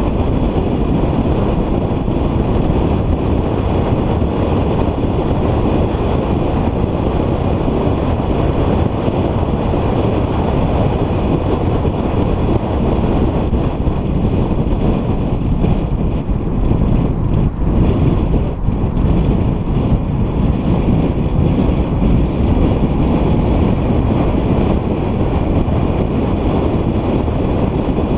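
Car driving at track speed, heard mostly as a steady, loud rush of wind on an exterior-mounted camera microphone with road and engine noise underneath. The rush dips briefly a few times about two-thirds of the way through.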